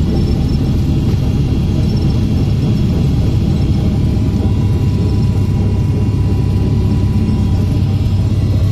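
Cessna 150's four-cylinder Continental O-200 engine and propeller running at low power while taxiing, heard from inside the cabin as a steady low drone.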